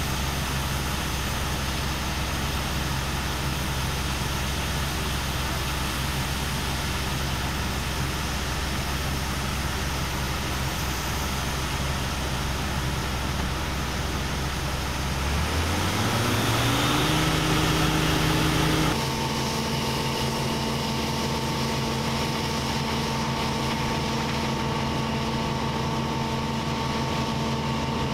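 Claas Dominator 98 SL combine harvester running steadily. About halfway through, a whine rises in pitch and the machine gets louder. A few seconds later the sound changes abruptly to a steady humming drone.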